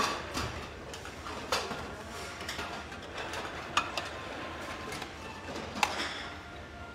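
Light clinks and taps of tableware, chopsticks or utensils against dishes, scattered irregularly over a low background.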